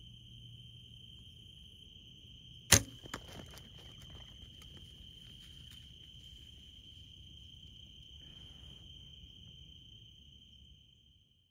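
Compound bow shot at a deer about three seconds in: one sharp crack of the string on release, a second, softer knock just after, then a few seconds of light rustling and clatter. Insects chirp steadily throughout.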